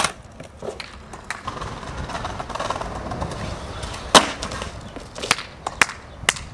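Skateboard wheels rolling on rough concrete, then a loud sharp smack about four seconds in as the board comes down from a stair jump, followed by several lighter clacks of the loose board hitting the ground after the skater bails.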